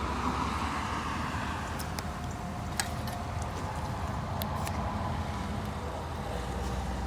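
Steady low rumble of a motor vehicle running, with a few light clicks.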